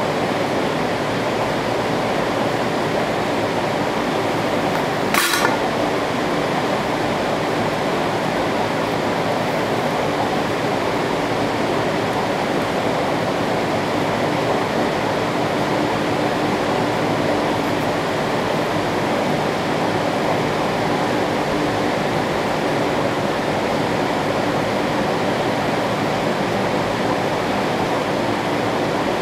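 Electric fans of a tornado simulator running at high speed: a steady rushing of air with a faint hum, and a single sharp click about five seconds in.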